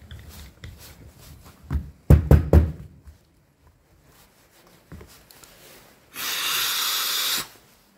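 Clearing congealed antifreeze from an MGB heater control valve: a quick cluster of heavy knocks about two seconds in, then a loud, steady rush of air blown through the valve for over a second, cut off sharply.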